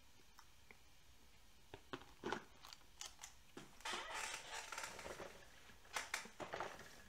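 Scattered small clicks, then two short stretches of rustling noise close to the microphone, about 4 and 6 seconds in.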